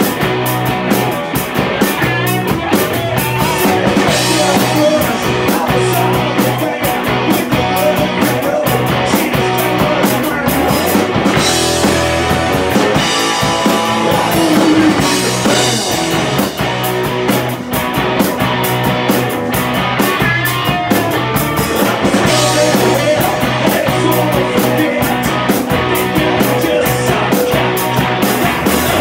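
Live rock band playing loud, with a drum kit keeping a steady, driving beat under electric guitars.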